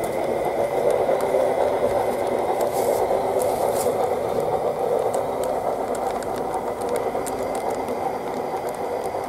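Battery-powered G-scale model locomotive running with a steady whir from its motor and gearbox, its wheels and the loaded log wagons rolling over the track with many small clicks from the rail joints and points.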